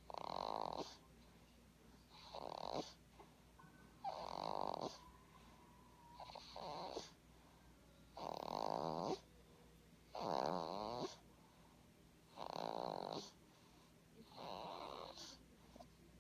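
Snoring in regular breaths, about one snore every two seconds, eight in all.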